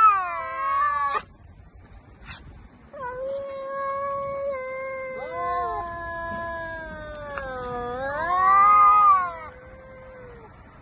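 Two domestic cats caterwauling at each other in a face-off. A loud yowl breaks off about a second in, then from about three seconds long, drawn-out, overlapping yowls rise and fall, loudest just before they trail off near the end.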